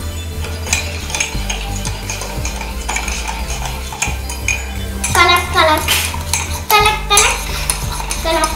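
A metal spoon stirring and clinking quickly against a ceramic mug, beating instant coffee, sugar and hot water together for whipped dalgona coffee.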